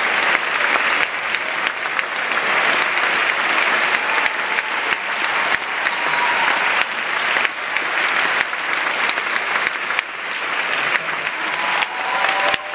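Large theatre audience applauding: dense, continuous clapping that holds steady throughout.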